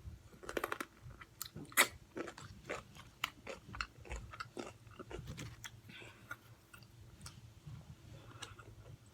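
Close-up chewing and biting of Popeyes fried food: a run of crisp crunches and wet mouth clicks, the sharpest crunch about two seconds in.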